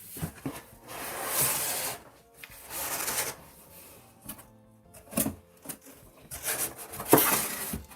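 Cardboard boxes and packaging being handled during unpacking: rustling and scraping, with sharp knocks as boxes are set down, the loudest about seven seconds in.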